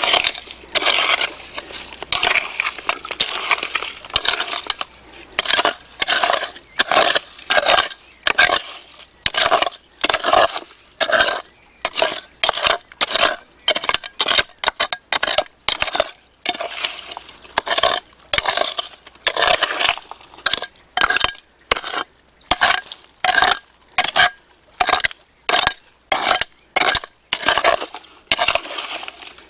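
Small hand hoe chopping and scraping into wet, stony soil, its blade grating and clinking against gravel and pebbles in repeated strokes, about three every two seconds.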